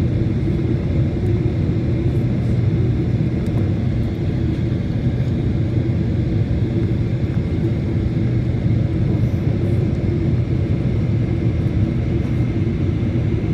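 Steady low drone of a Boeing 777-300ER's GE90 engines and rushing airflow, heard inside the passenger cabin during descent.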